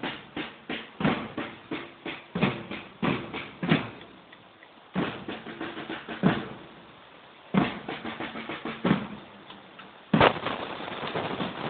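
Marching drums beating a rhythm: a run of quick strokes, a short lull, then single strokes about every second and a quarter, and busier playing again near the end.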